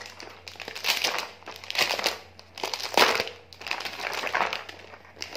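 Clear plastic packaging crinkling in irregular bursts as hands handle and turn it over, loudest about three seconds in.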